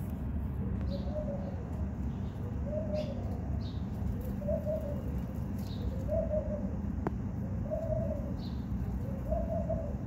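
A dove cooing, six low coos at an even pace about every second and a half to two seconds, over a steady low rumble. A few short high chirps come in between.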